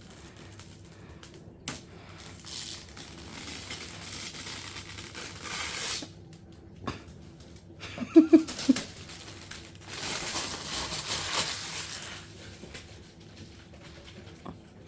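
Packing material being pulled out of a gaming PC case: crinkling and rustling in two long stretches, with a few sharp clicks and a brief squeaky sound about eight seconds in.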